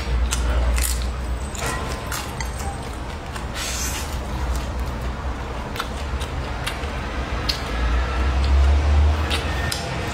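Close-up chewing and mouth sounds of a person eating with chopsticks: scattered short wet clicks and squelches. A steady low rumble runs underneath and grows louder near the end.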